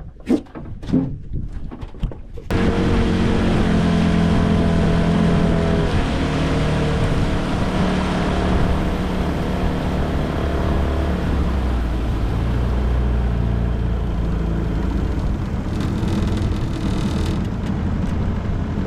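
A few short knocks, then from about two seconds in a boat's outboard motor running steadily at speed, with a rushing haze of wind and water over the engine drone.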